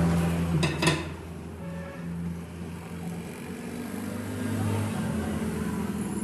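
Steady electric machine hum in a metal workshop, with two sharp metallic clicks a little under a second in.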